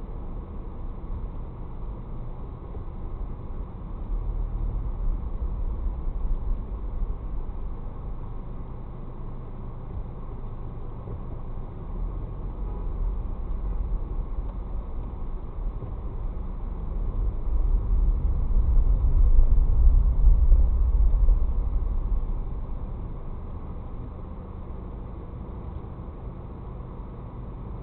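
Low, steady rumble of a car driving in slow town traffic, heard from inside the cabin: engine and road noise that swells louder twice, most strongly a little past the middle.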